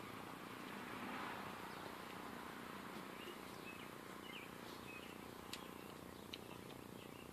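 Faint birds chirping over a steady background hiss, with two light clicks in the second half.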